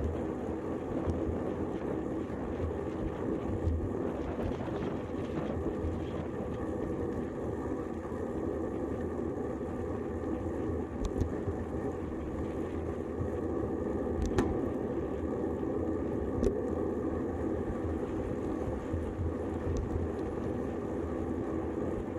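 Steady riding noise of a road bicycle rolling along asphalt, tyre and road rumble mixed with wind, picked up by a camera fixed to the handlebars. A few sharp knocks from bumps in the road come through the frame about halfway through.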